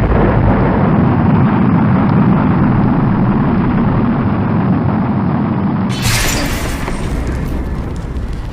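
Loud, steady rumbling roar of a rocket launch, changing about six seconds in to a brighter, crackling sound as music begins.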